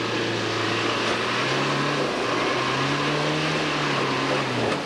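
Classic Range Rover's turbodiesel engine revving hard under load while ploughing through deep mud, its pitch rising and falling twice under a steady rush of noise.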